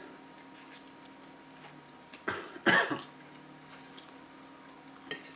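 A man coughs twice in quick succession about two seconds in, the second cough louder and longer, his throat caught by the chilli burn of very spicy instant noodles.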